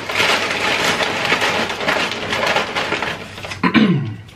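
Hand rummaging in a large paper bag of tortilla chips, a dense crinkling and crackling for about three seconds. A short voice sound falling in pitch follows near the end.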